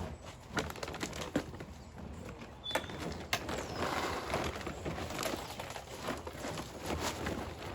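K1 plastic filter media clattering and rattling as it is tipped out of a filter drum into a bag, with irregular sharp clicks and a denser rattle in the middle.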